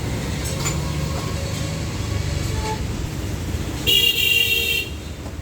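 A vehicle horn sounds once for about a second near the end, over a steady low rumble.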